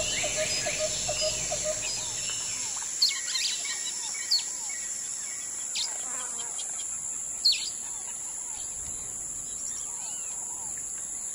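Wild birds calling in riverside bushland, several sharp chirps standing out, over a steady high-pitched insect drone. A rapid pulsed call and a low rumble both fade out in the first few seconds.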